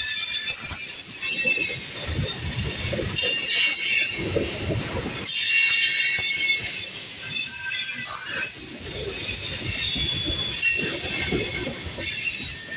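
Freight train of tank cars rolling past close by, its wheels squealing in several high, steady tones that come and go, over the uneven low rumble of the wheels on the rails.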